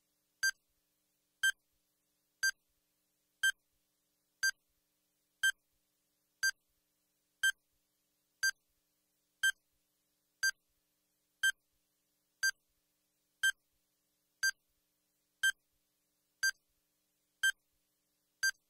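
Countdown timer sound effect: a short, high beep once every second, marking off the seconds left on the clock.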